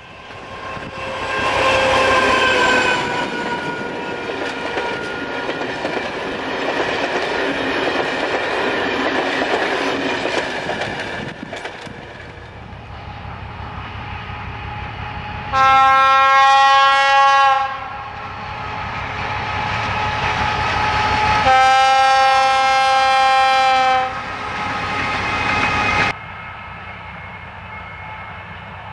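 ČD class 751 diesel locomotive hauling a passenger train: the engine running and the train rumbling over the rails as it passes, then two long blasts of its horn, each about two seconds long, a few seconds apart.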